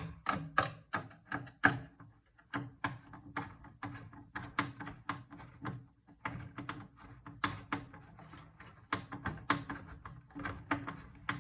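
Irregular clicks and light metallic knocks, several a second, from a screwdriver and small metal parts being worked inside a computer case while a screw is being removed.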